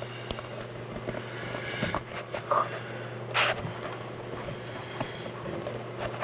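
Scattered rustles, light knocks and one louder scrape about three and a half seconds in, from objects being handled close to the microphone, over a steady low hum.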